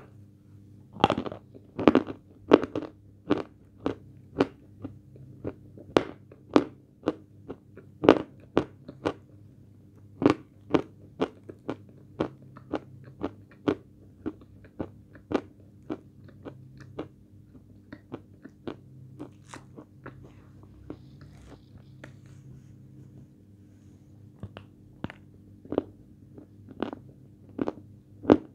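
Close-up crunching and chewing of hard chunks of edible white chalk (Khrapovsky chalk), a sharp crunch about every half second. The crunches thin out midway and come faster again near the end.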